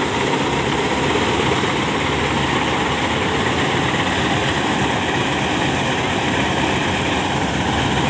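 Malkit combine harvester's diesel engine running steadily while its unloading auger pours rice grain into a tractor trolley.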